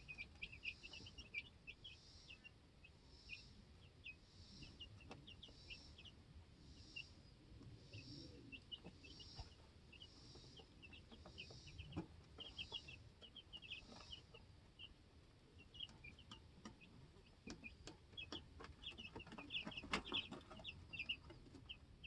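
Two-week-old chicks peeping: many short, high peeps in quick runs, busiest near the end. Scattered sharp taps sound among them, and a soft hiss pulses about once a second behind them for the first half.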